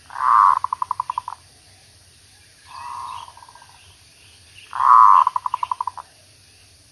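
Zebra dove (merbuk) cooing three times. Each call is a swelling coo that breaks into a quick run of short staccato notes, and the middle call is softer than the other two.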